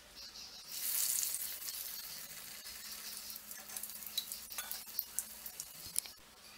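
Bread kachori patty dropped into hot oil in a steel kadai, sizzling sharply about a second in, then settling into a steady frying sizzle. A few light clicks of the metal spoon against the pan come near the end.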